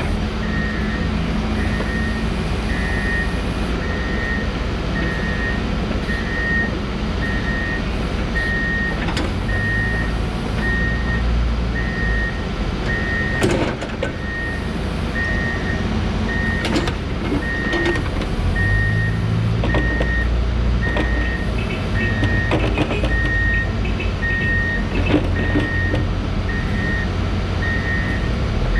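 Case 590 Super N backhoe loader's diesel engine running and working under changing load, with its backup alarm beeping at a steady, even rhythm as the machine moves in reverse. A few sharp clunks from the machine come partway through.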